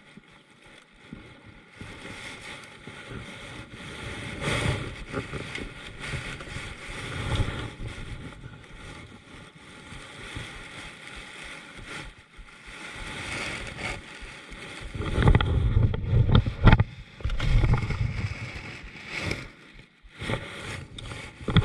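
Wind buffeting the microphone over water noise from a kayak on open water. Heavier gusts rumble on the microphone in the last third.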